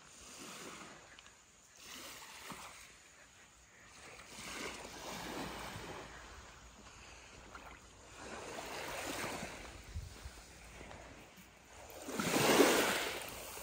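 Small waves washing up on a sandy beach, coming in as swells every few seconds, the loudest one near the end.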